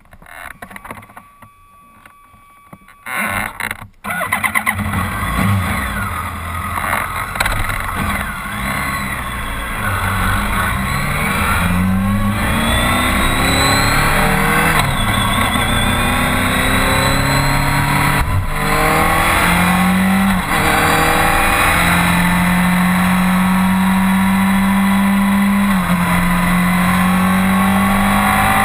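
BMW K1200R inline-four motorcycle engine starting about three seconds in, then pulling away and accelerating up through the gears, its pitch climbing and dropping back at each shift. It settles into a steady cruise near the end.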